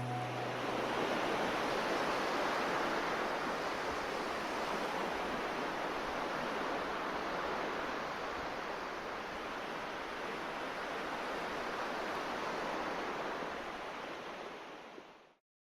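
Steady rushing noise, like surf or wind, with no music or voice. It fades down and cuts off to silence near the end.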